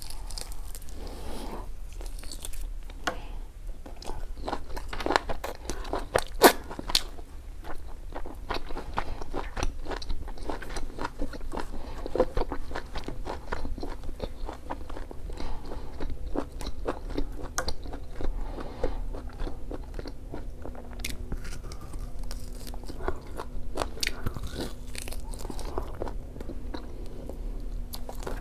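Close-miked eating sounds: biting and chewing crispy fried pork, with many short crunching crackles and wet chewing, the loudest crunch about six seconds in.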